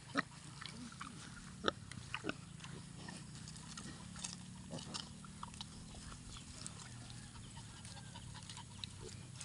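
Sow and piglets grazing: a low, steady grunting with many short sharp clicks and crunches of chewing and rooting. The loudest clicks come about a second and a half apart near the start.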